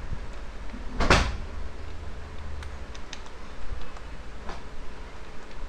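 A short, noisy thump about a second in, then a few faint clicks of computer keys being typed, over a steady low hum.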